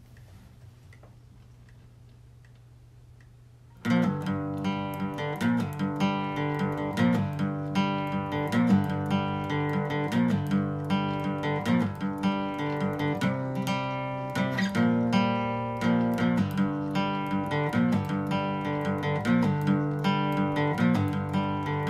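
Faint low hum, then strummed acoustic guitar music comes in suddenly about four seconds in and carries on with a steady beat.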